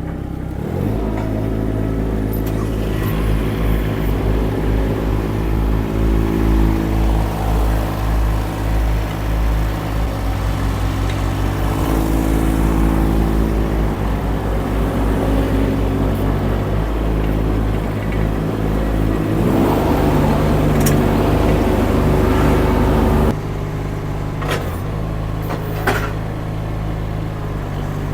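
Mini skid steer engine throttled up about a second in and running under load while the loader arms lift a pallet of concrete blocks on forks. It turns harsher and louder for a few seconds before dropping suddenly to a lower steady run, with a couple of light knocks near the end.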